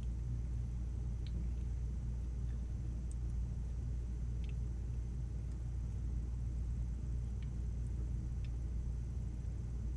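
Steady low electrical hum with faint hiss, the background tone of the recording between sentences, broken by a few faint ticks.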